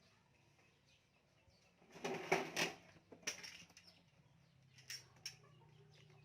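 Handling noises from unpacking: rustling and clattering of packaging, loudest in a burst about two seconds in, with two short clicks near the end, over a faint low hum.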